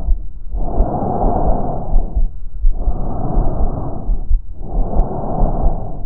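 Breath sounds heard through a stethoscope over the lungs: a rushing noise with each breath, three breaths each about a second and a half long with short pauses between, with low thumping underneath.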